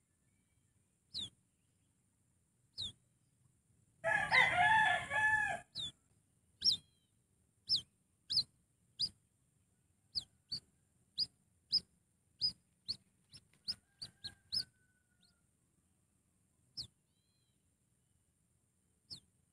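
Birds calling: short, high, downward-slurred whistled notes repeat every second or so, coming faster between about ten and fifteen seconds in. About four seconds in there is a loud burst of harsh, fowl-like calls lasting about a second and a half.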